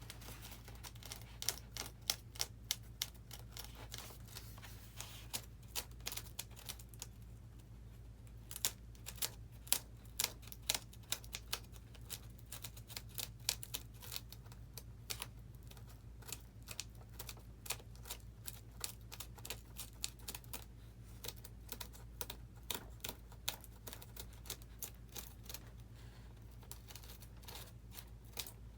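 Irregular sharp clicks and taps, a few a second, from a small flat-head screwdriver picking and scraping at the wire channel cut into a foam RC model wing while it is smoothed out. A low steady hum runs underneath.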